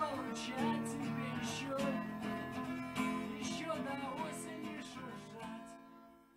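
Acoustic guitar strumming the closing chords of a song, the sound dying away over the last couple of seconds.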